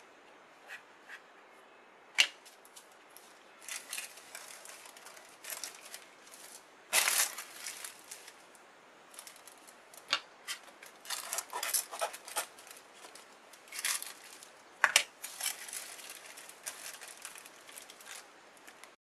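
Baking parchment rustling and crinkling in irregular bursts as it is pulled tight and rolled around a roll cake, with a few sharp snaps of the paper.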